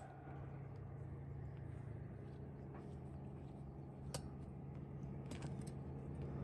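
A quiet outdoor lull: a low steady hum with faint background noise, broken by one sharp tick about four seconds in and a few fainter ticks a second later.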